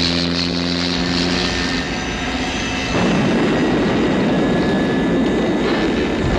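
Propeller-driven vintage biplane engine droning in flight, the film's de Havilland Tiger Moth. The sound turns louder and rougher about three seconds in.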